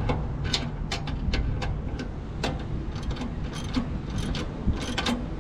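Hand ratchet wrench clicking in short, irregular strokes, a few clicks a second, as a fender mounting bolt is tightened down, over a steady low rumble.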